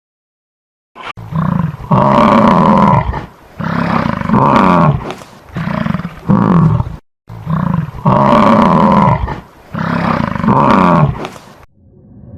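A large animal roaring: a series of about nine deep calls starting about a second in, with the longest and loudest ones separated by shorter calls.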